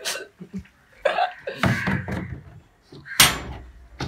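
Brief indistinct voice sounds, then a single loud, sharp clank from a black steel gate about three seconds in.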